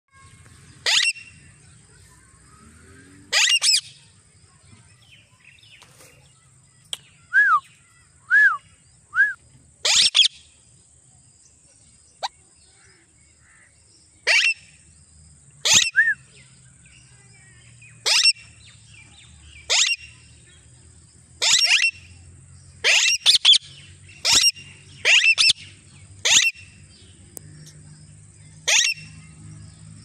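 Alexandrine parakeets calling: about fifteen short, loud, harsh calls at irregular gaps of a second or two. A third of the way in come three short whistled chirps that fall in pitch. A faint steady high buzz runs underneath.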